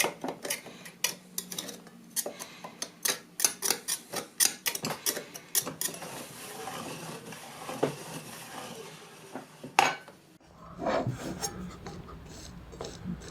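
Meat grinder working through Kinder Surprise chocolate eggs: rapid sharp clicks and crackles with metal clatter, settling into a steadier grinding noise after about six seconds.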